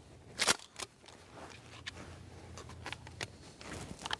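Rustling noise from movement close to the microphone: irregular sharp clicks and crackles, the loudest about half a second in, over a faint low rumble.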